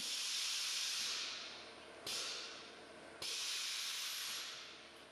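Air suspension on a Mazda letting air out of its air springs as the car is lowered: three sharp bursts of hiss, each starting suddenly and fading away over a second or two.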